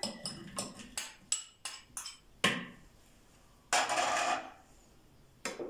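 Light clicks and knocks of chopped onion and a small glass bowl against a plastic food-processor bowl as the onion is tipped in, with one louder knock about two and a half seconds in and a short scraping sound around four seconds.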